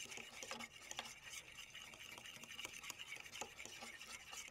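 Fork beating egg, oil and sweetener in a microwave entree tray: faint, quick, irregular clicks and scrapes of the tines against the tray.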